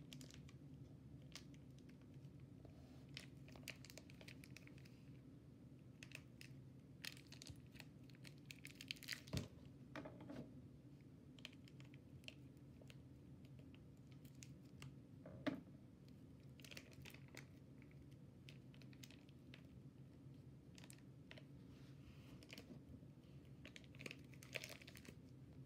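Near silence: low room hum with faint scattered clicks and crinkles, a little louder about nine and fifteen seconds in.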